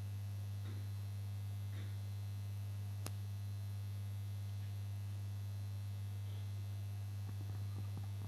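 Steady low electrical mains hum, a constant tone with a weaker overtone above it, carried in the recording's audio chain. There is one faint click about three seconds in.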